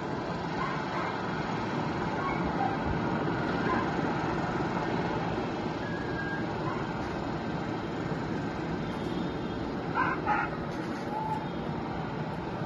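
Steady background noise with a dog barking twice, about ten seconds in.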